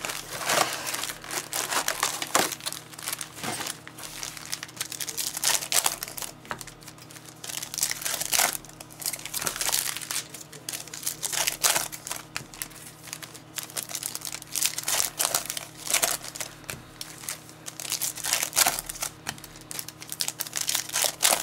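Plastic wrapping crinkling and tearing in irregular, crackly runs as a box of football trading cards and its card packs are opened.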